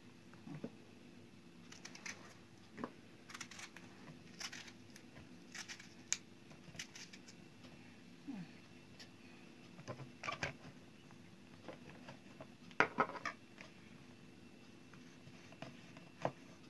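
Faint, irregular squeaks, crinkles and rustles as a hand packs peppers and tomato slices down into a large ridged plastic jar, with the loudest cluster about 13 seconds in.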